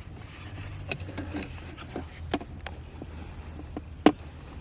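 Hands rubbing and pressing a tape-backed carbon fiber trim piece down onto plastic interior trim, with a few sharp plastic clicks and taps, the loudest about four seconds in.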